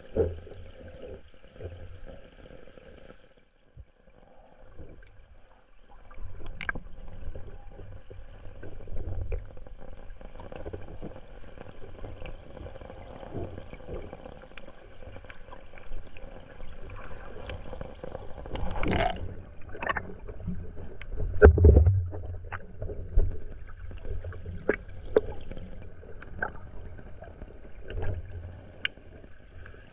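Muffled water sound picked up by a camera held underwater in a shallow rocky stream: a low rumbling wash with scattered sharp clicks and knocks, the loudest cluster about two-thirds of the way through.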